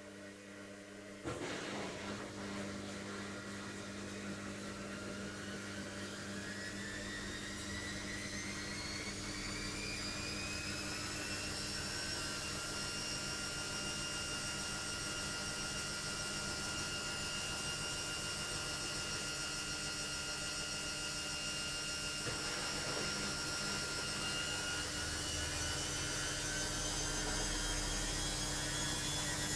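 Logik washing machine speeding up in its final spin: a knock about a second in, then the motor's whine rises over several seconds, holds steady, and climbs again near the end as the drum reaches higher speed.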